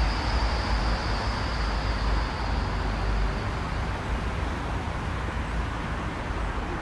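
Steady background noise of road traffic, with a low rumble under it. A thin high whine fades out over the first few seconds.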